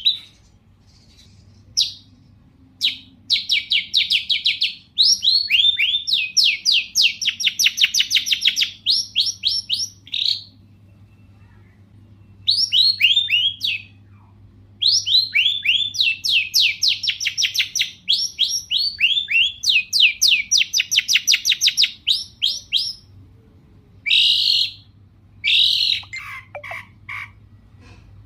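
Long-tailed shrike (cendet) in full song: long runs of rapid, sharp, down-slurred chattering notes, repeated many times a second and broken by a few short pauses.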